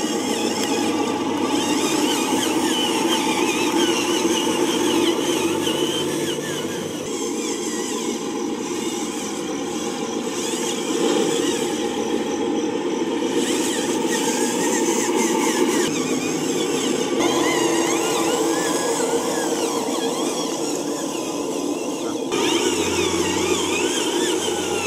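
Radio-controlled Zetros dump truck driving over dirt, its drive running steadily, with a few abrupt shifts in tone.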